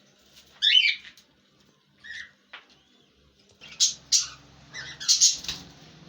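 Pet parrots giving short, harsh squawking calls: one loud call, a softer one a second or so later, then a quick run of several calls in the second half.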